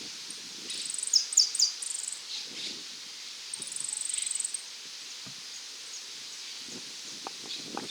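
Rural field ambience with a few sharp, high bird chirps about a second in, then a short, high buzzing trill around four seconds in, over faint rustling.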